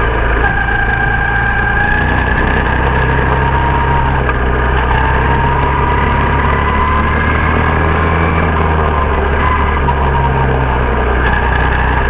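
Small engine of a quarter midget race car running steadily at track speed, heard from on board, its pitch wavering a little through the laps.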